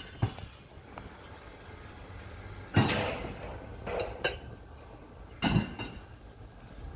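Sharp metallic clanks and knocks on a building site, five or so, some ringing briefly, the loudest about three seconds in and again about five and a half seconds in, over a low steady rumble.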